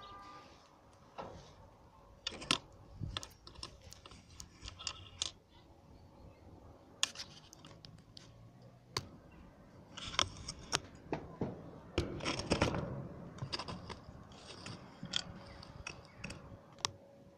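Irregular light clicks, taps and scrapes of close handling, with denser, louder clusters about ten and twelve seconds in.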